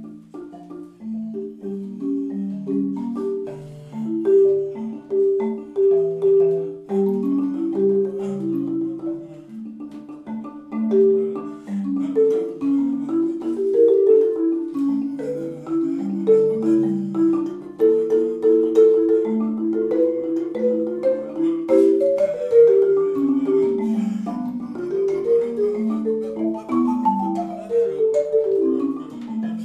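Solo marimba played with yarn mallets: a quick, flowing melody over chords, many notes a second, most in the low and middle range of the instrument.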